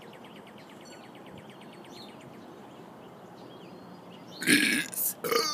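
A man's loud, short burp about four seconds in, with a brief second sound just after it; birds chirp faintly before it.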